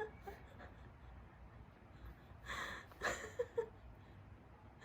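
A person's breathy exhales, two short ones about two and a half and three seconds in, with a couple of brief soft voiced sounds just after: a startled reaction to a water balloon bursting.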